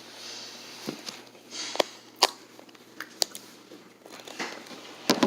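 Someone starting to eat spicy noodles: a handful of sharp clicks and taps, as of a utensil against the bowl or packaging, with soft breathy sniffs between them.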